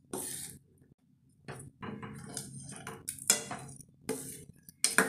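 Metal spoon scraping and clinking against a steel pot while stirring thick milk-and-rice pudding, in irregular strokes with a few sharper clinks, the loudest about three seconds in and near the end.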